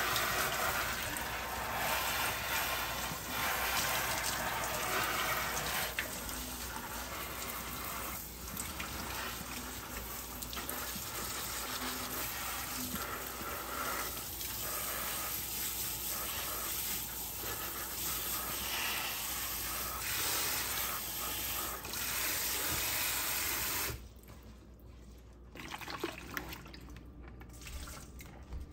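Kitchen faucet's pull-down spray head running steadily, spraying water onto a potted plant's soil and leaves in a steel sink. Near the end the water shuts off abruptly, leaving a few faint knocks of handling.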